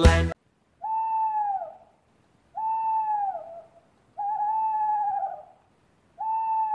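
Owl hooting: four long, even hoots about a second and a half apart, each a clear tone that bends slightly and drops at its end.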